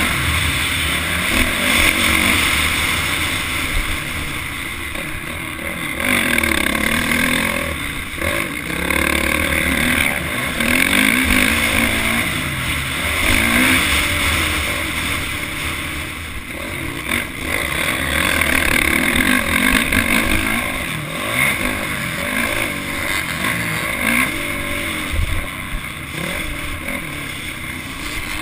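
Motocross dirt bike engine heard from on board, revving hard and backing off again and again, its pitch repeatedly climbing and dropping as the rider accelerates, shifts and slows around the track.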